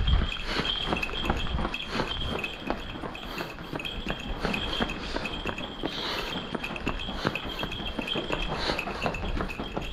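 Running footsteps on cobblestones: a quick, irregular run of shoe strikes from several trail runners.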